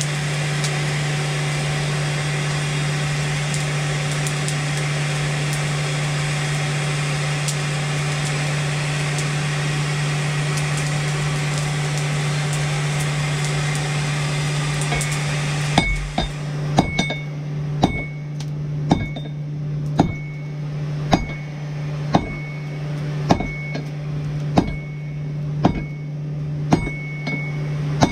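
A steady rushing noise over a low hum for a little over half the time, which then cuts off. Hammer blows on hot steel at the anvil follow, about one a second, each with a short metallic ring, as the bent-over wrench end is flattened.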